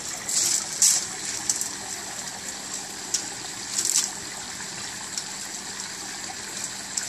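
Steady rush of moving water in a fish pond, with a few short splashes at the surface, about half a second in, just before a second, and near four seconds, as large fish go for food held out on feeding tongs.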